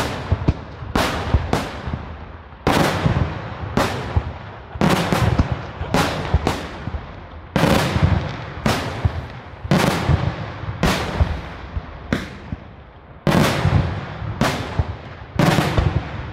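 Daytime fireworks display: aerial shells bursting overhead in rapid succession, loud sharp bangs coming a little more than once a second, each trailing off in a rolling echo.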